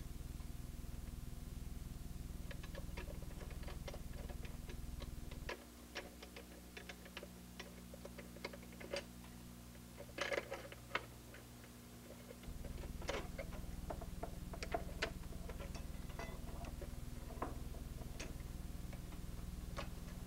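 Small, irregular metal clicks and ticks of a 1/4-inch end wrench working the nuts of an oscilloscope's preamplifier bracket, with a quick run of louder clicks about ten seconds in. A steady low hum underneath drops out for several seconds in the middle.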